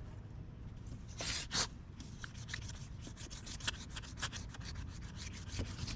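Hand wet sanding of a Yamaha Blaster ATV's plastic body panel with fine 400–600 grit wet sandpaper: a couple of longer swishes about a second in, then quick, short back-and-forth strokes. This is prep work, taking off old spray paint so primer will hold.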